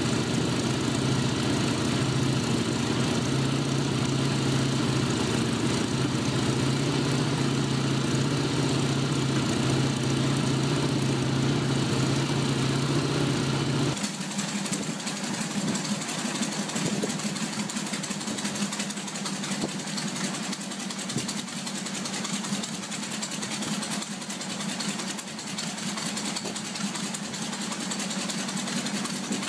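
Radial aircraft engine on the back of a Volkswagen Beetle idling steadily, its propeller turning. About halfway through it gives way suddenly to a different, higher-pitched engine running.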